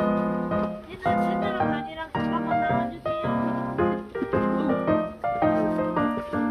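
Background music: a piano-like keyboard tune played in short repeated chords with a steady, bouncy rhythm.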